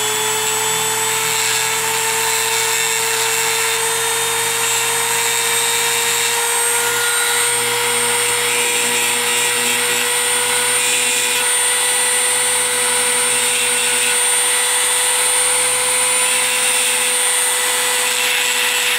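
Dremel rotary tool running at a steady high whine, its pink grinding stone working the sharp crimped edge of a steel recoil spring guide rod into a smooth concave contour and bevel.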